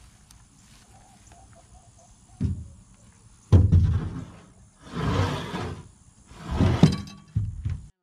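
Heavy green lumber boards being laid onto a stack on a trailer: a few loud wooden thumps, starting about two and a half seconds in, and the scrape of boards sliding over one another.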